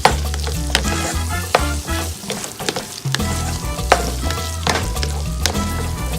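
Onion-tomato masala with chilli, pepper and masala powders sizzling in a pan while a spoon stirs it. Repeated sharp scraping knocks of the spoon against the pan sound through the frying, as the spices cook until their raw smell is gone.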